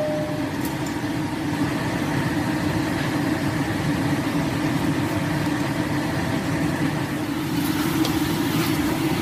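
Chicken pieces sizzling and bubbling in a wok as the coconut-water braise boils down nearly dry, over a steady low hum.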